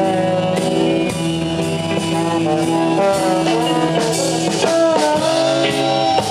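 Rock music with no singing: a guitar melody over bass and drums, with notes bending in pitch about five seconds in.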